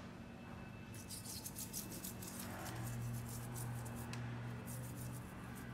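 Faint scratchy rubbing and light clicks from a rusty motorcycle chain being worked by hand, with a steady low hum underneath.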